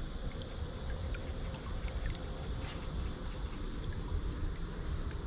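Water trickling and dripping off a wet cast net as it is gathered up in the hands. Scattered faint drips can be heard over a steady low rumble.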